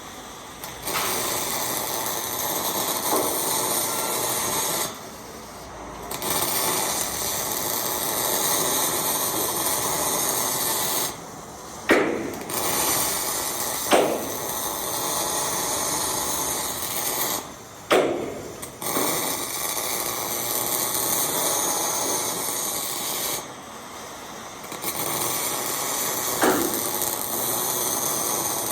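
MIG welding arc crackling steadily on hex mesh, in five runs of four to six seconds with breaks of about a second between them. There are a few sharp pops where runs start.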